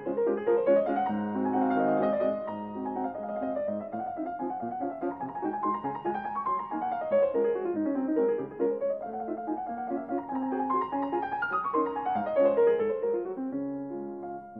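Background piano music with quick runs of notes sweeping up and down.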